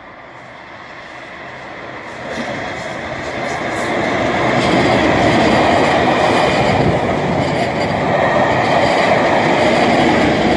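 Network Rail test train hauled by Colas Rail Class 37 diesel locomotives passing close by, its English Electric engines running and its wheels rumbling on the rails. The sound builds as the leading locomotive comes near, jumps about two seconds in, and stays loud as the coaches and the trailing locomotive go past.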